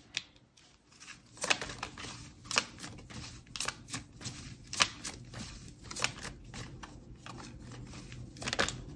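A deck of cards being shuffled by hand: an irregular run of sharp slaps and flicks, about two or three a second, starting about a second in.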